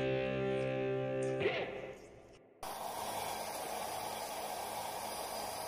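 Background music that fades out, then a sudden switch to a handheld hair dryer blowing steadily, drying a cat's wet fur.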